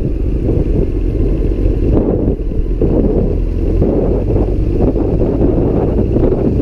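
Wind rushing over the microphone on a moving motorcycle, over the low, steady running of a Honda CBR954RR Fireblade's inline-four engine at city speed.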